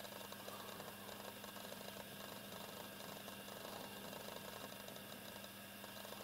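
Domestic ginger cat purring faintly and steadily, contented.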